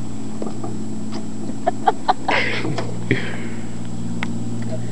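Boat motor running with a steady low hum, with a few short clicks and scuffs of handling near the middle.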